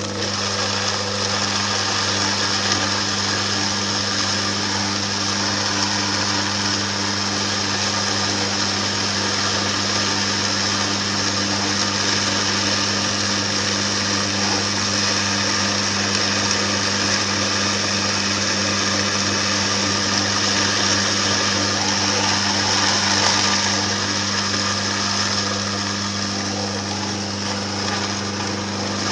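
Electric masticating juicer running steadily with a low hum, grinding roasted cocoa nibs into liquid cocoa paste.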